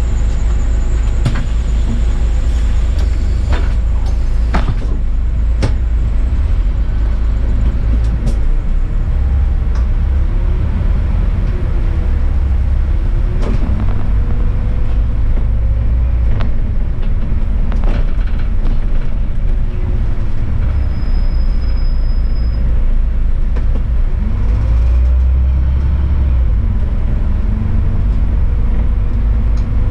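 City bus driving on a snowy street: a steady low engine and road rumble, with a fainter whine that rises and falls in pitch as it speeds up and slows. A few short sharp knocks sound, mostly in the first half.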